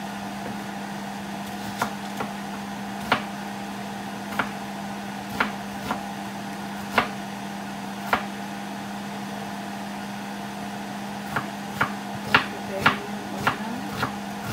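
Empty nonstick frying pan heating on a gas burner, giving sharp, irregular ticks: a handful spread over the first eight seconds, then a quicker cluster near the end. A steady low hum runs underneath.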